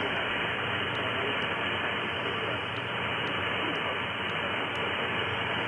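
Shortwave communications receiver's loudspeaker playing steady static hiss with no clear station audible, the hiss dull and without highs as heard through the radio's narrow audio passband. A few faint clicks sit over it.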